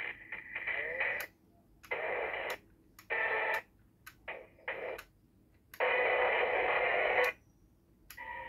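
Bootleg CSM Amazons Driver toy belt playing its electronic sound effects through its small built-in speaker: a string of short, tinny bursts with gaps between them, the longest lasting about a second and a half near the end.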